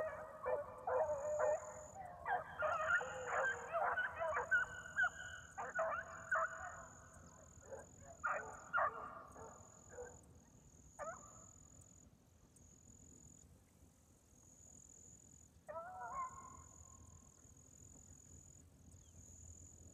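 A pack of young beagles baying while running a rabbit through thick cover. The chorus is dense for the first half, then thins to a few single calls, one about three-quarters of the way through. Insects trill steadily underneath in pulses of about a second.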